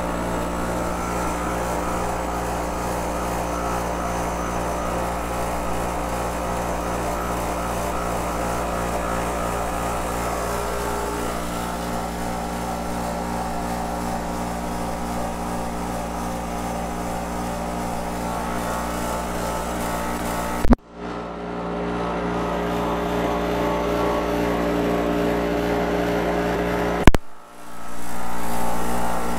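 A/C refrigerant recovery machine running steadily, its compressor giving a constant hum with a regular low pulse while it draws refrigerant out of the car's system. It is cut off twice by a sharp click and a brief dropout.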